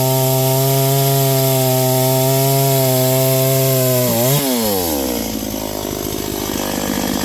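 Noker 381 72cc two-stroke chainsaw held at a steady high speed. About four seconds in it revs up briefly, then drops back to a rough idle.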